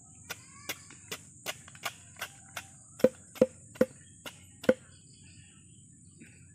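A long knife chopping the rind off a jackfruit against a wooden log: about a dozen even strikes, roughly three a second, the last four louder with a woody knock, stopping a little before the end. A steady high-pitched insect drone runs underneath.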